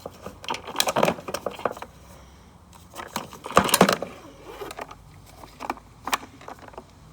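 Clicks, rattles and knocks of the lawn mower's pull-starter cover being lifted off and handled, with a louder clatter about three and a half seconds in and a couple of single clicks near the end.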